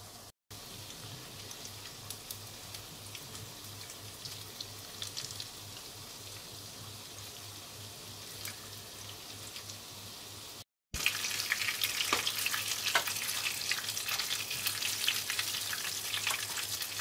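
Panko-breaded, meat-wrapped onion pieces frying in 170 °C oil in a frying pan: a steady sizzle with scattered crackles. After a brief break about eleven seconds in, the frying is much louder and crackles densely.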